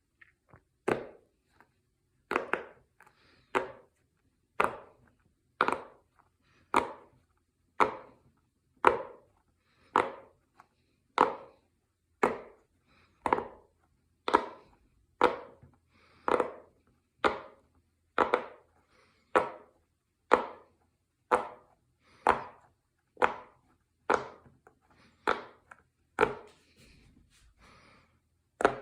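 Silicone pop-it fidget toy bubbles being pressed one after another, each giving a short sharp pop, steadily at about one a second.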